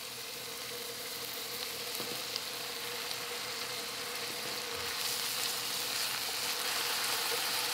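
Chopped onions, garlic and tomato paste sizzling in hot oil in an electric cook pot; the sizzle gets louder about five seconds in.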